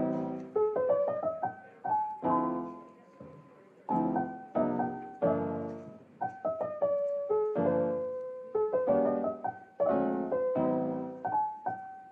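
Background music: a gentle piano tune of chords and single notes, each struck and fading.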